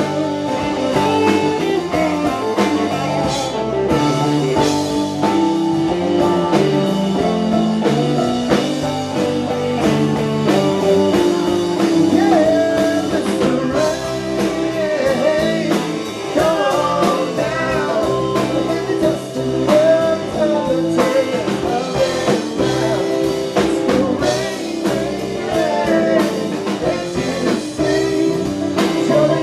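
Live band playing a blues-rock song at a steady volume: upright bass, acoustic and electric guitars and a drum kit, with voices singing in the second half.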